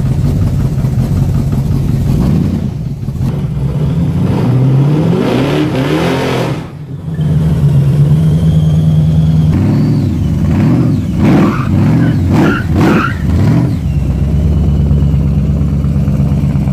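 Chevrolet Malibu drag car's engine running loud, revved up once about four to six seconds in, then blipped several times in quick succession between about ten and thirteen seconds, settling back to a steady idle between and after.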